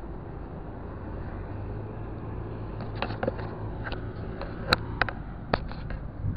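Fishing tackle being handled: a string of sharp clicks and taps, one much louder than the rest, from about halfway in, over a steady low outdoor rumble with a low hum.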